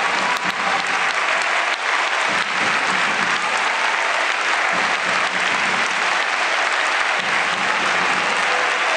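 Large football stadium crowd applauding steadily.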